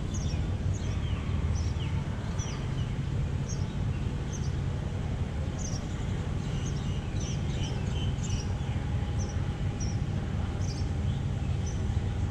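Boat engine idling with a low, steady rumble, while a bird chirps over it again and again in short high calls, about one a second.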